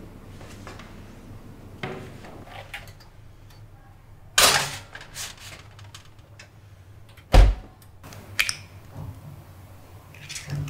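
Oven door being handled: a loud rushing clatter about four seconds in, then a heavy thunk of the door shutting about three seconds later. Lighter handling knocks come before and after.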